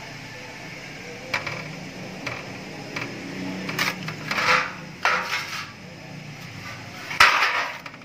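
Sheet-metal automatic transmission oil strainer from a Suzuki APV being handled in a metal drain pan: a series of irregular knocks and clatters, with the loudest clatter near the end.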